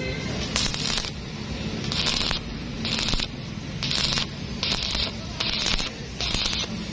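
Arc welding on thin angle metal in short on-off bursts: about eight brief crackling, hissing strikes of the arc, each under half a second, less than a second apart.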